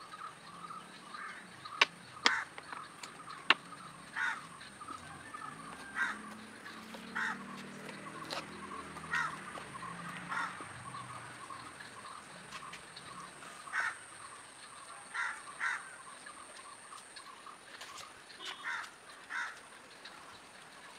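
Birds calling outdoors: repeated short, loud calls at irregular intervals, with a few sharp clicks in the first few seconds and a faint steady high whine underneath.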